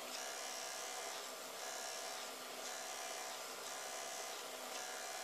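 Handheld electric eraser running, its small motor whirring steadily while the spinning rubber tip scrubs paint off airbrushed card in short strokes about once a second, lifting out fine light lines for hair.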